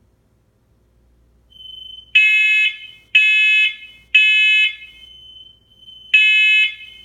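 Combination smoke and carbon monoxide alarm sounding during its self-test. It gives three loud beeps about a second apart, pauses, then starts the next set of three with a fourth beep near the end: the temporal-three pattern that signals smoke. A faint steady tone leads in before the first beep and hums through the pause.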